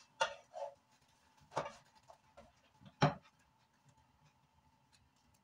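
A few short, sharp taps and knocks, spaced about a second and a half apart, as hands work a sheet of dough on a granite worktop, over a faint steady hum.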